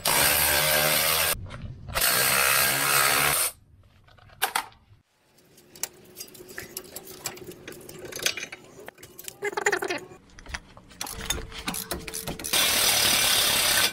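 Power tool spinning bolts off a Land Rover's brake assembly during a disc and pad change, in three bursts of about a second and a half: two near the start and one near the end. Light clicks and knocks of parts being handled come in between.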